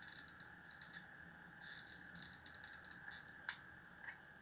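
Hot glue gun in use: irregular runs of small, sharp clicks from the trigger and stick-feed mechanism as it is squeezed.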